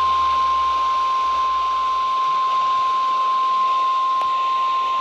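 Emergency Alert System attention tone received over the radio: one steady high tone over radio hiss.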